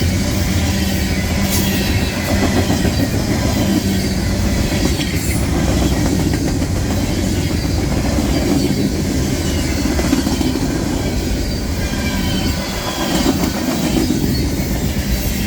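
CSX mixed freight train rolling past on the near track: a steady loud rumble of railcar wheels on the rails, with faint high wheel squeals now and then.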